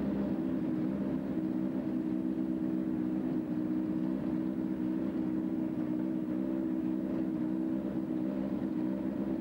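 An engine running steadily at a constant speed, a level drone with no revving.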